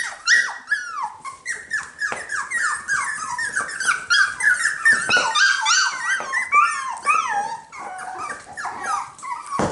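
A litter of 6.5-week-old cockapoo puppies whining and yipping: many short, high-pitched calls overlapping, most of them falling in pitch.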